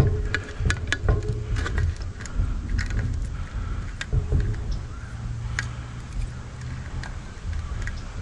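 Close handling noise of parts being worked by hand at an e-bike's down tube: irregular clicks and taps, thickest in the first two seconds and again about four seconds in, over a steady low hum.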